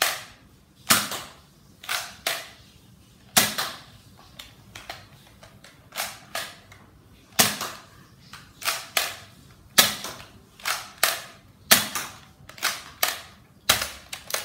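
NERF Elite Strongarm spring-powered dart revolver being primed and fired over and over. About twenty sharp snaps, coming quicker in the second half.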